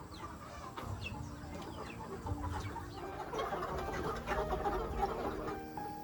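Chickens clucking, a busy flock of short calls that grows denser and louder from about three seconds in until just before the end.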